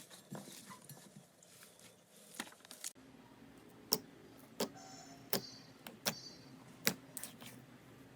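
Slime being handled by hand: soft crackling, then, after a cut about three seconds in, a series of sharp pops or clicks, roughly one every half second to second, over a low steady hum.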